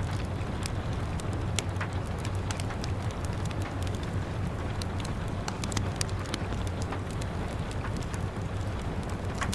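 Wood fire crackling with irregular sharp pops, several a second, over a steady hiss of rain on a window and a low rumble.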